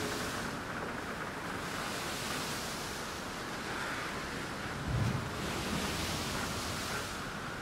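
Ocean surf washing in as a steady rushing noise that swells and eases, with wind buffeting the microphone and a low thump about five seconds in.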